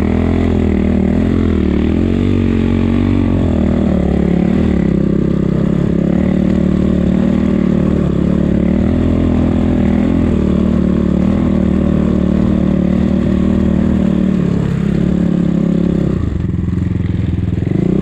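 Enduro motorcycle engine running under load, its revs rising and falling with the throttle. The engine eases off briefly about sixteen seconds in, then picks up again.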